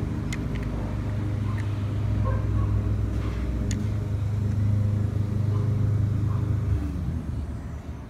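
Low, steady engine hum that fades out about seven seconds in, with a few short clicks over the first few seconds.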